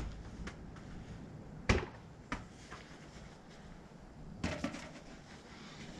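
Small thrown play balls striking the house wall and the targets along it with sharp knocks: a loud one a little under two seconds in, a fainter one half a second later, and a quick double knock about four and a half seconds in.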